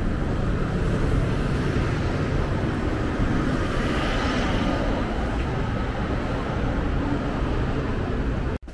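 Steady outdoor traffic rumble from buses and cars at a kerbside road, a low even noise that swells slightly around the middle and cuts off suddenly near the end.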